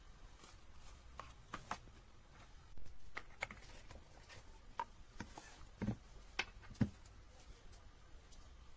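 Scattered light clicks and taps, about a dozen at irregular intervals, like small objects being handled, against faint room tone.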